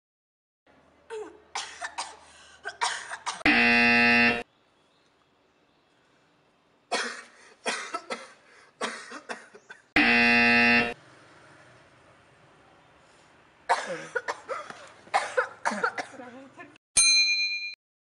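A person coughing in several short bursts, then a loud flat buzzer sound effect of about a second. The same thing repeats. A third round of coughing is followed by a short bright chime.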